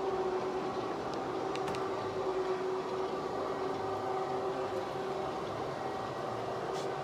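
Two motorized retractable patio screens rolling up, their tubular motors giving a steady, even hum.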